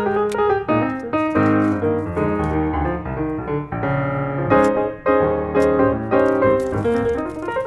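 Background piano music with a steady, lively run of notes.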